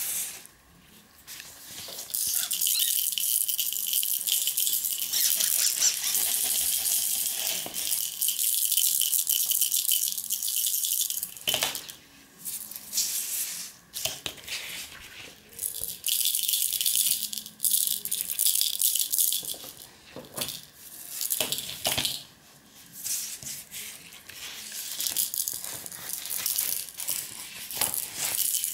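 Rattling, shaken steadily for about nine seconds, then in short repeated shakes.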